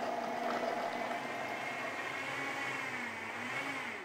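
Vitamix blender running steadily, its motor whining as it blends a liquid mix of cream, egg yolks and fruit; the pitch wavers a little near the end and starts to fall away as it winds down.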